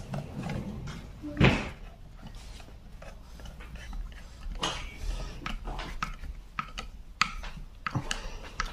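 Small clicks and knocks of plastic and metal parts being handled as the pistol grip of an airsoft AKS-74U replica is seated and its screw turned in with a long screwdriver, with one louder knock about a second and a half in.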